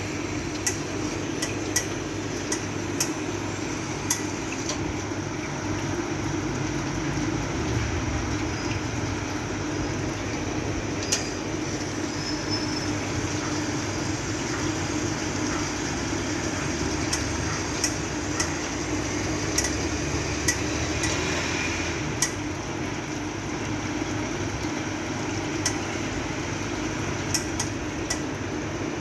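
Steady hum of a two-group espresso machine at work, with a low rumble swelling in the middle. Sharp clinks and knocks of cups and metal parts come at irregular moments throughout.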